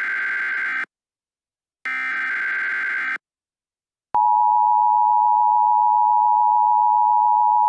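Emergency Alert System SAME header: the end of one buzzy data burst and then a second full burst about a second and a half long. After a silent gap, the EAS attention signal starts about four seconds in, a loud steady two-tone alarm of 853 and 960 Hz.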